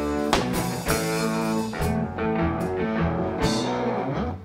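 Live rock band playing: electric guitars over drums, with cymbal hits every second or so. The music stops abruptly near the end.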